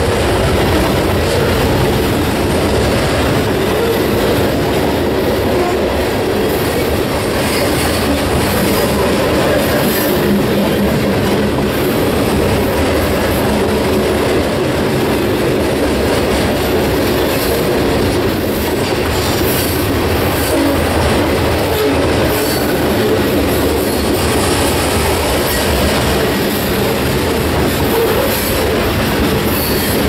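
Freight cars of a mixed manifest train rolling past close by: covered hoppers, tank cars and loaded lumber flatcars, their steel wheels running steadily over the rails.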